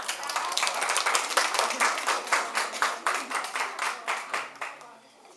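Audience applauding: many people clapping at once. It starts suddenly and fades away about four and a half seconds in.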